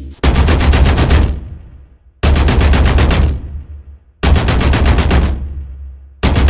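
Machine-gun fire, likely an added sound effect: four bursts of rapid shots about two seconds apart, each lasting about a second and dying away, the last starting near the end.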